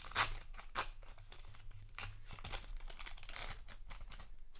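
Trading card booster pack wrapper crinkling and tearing as it is opened, in a run of irregular crackles.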